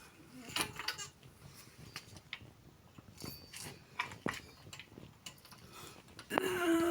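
Scattered light clicks and small knocks from something being handled and fiddled with, irregular and spaced out.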